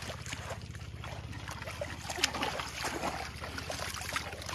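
Bare feet wading and splashing in shallow seawater at the water's edge, over a steady low drone. There is one sharp click a little after two seconds in.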